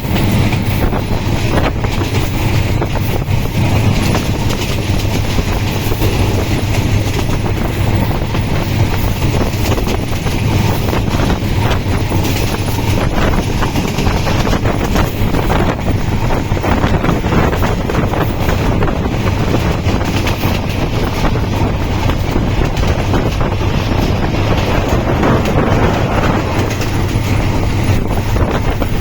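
Steady loud rumble with dense rattling and clacking, as from riding in a moving vehicle.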